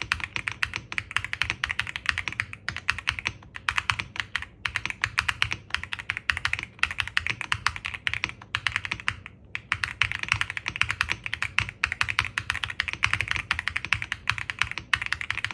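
Fast continuous typing on a 60% mechanical keyboard with lightly lubed Haimu linear switches: a dense run of keystrokes with a couple of brief pauses.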